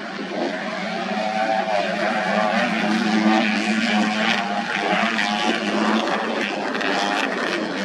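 Modified underbone motorcycle engines running hard in a grasstrack race, their pitch wavering up and down as the riders work the throttles.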